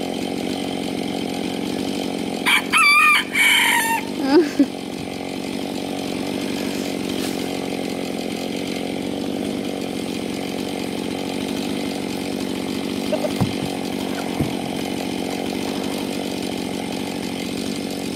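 Chainsaw idling steadily. A rooster crows loudly once about two and a half seconds in, with a shorter call just after it.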